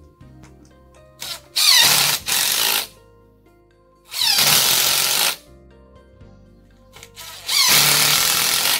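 Cordless drill-driver running in three short bursts, each a second or so, driving number 12 screws through a steel hinge plate into wood.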